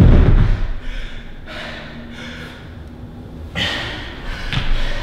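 A man breathing hard and gasping for breath, winded after an intense interval of exercise. The loudest gasp comes right at the start, with more heavy breaths about three and a half and four and a half seconds in.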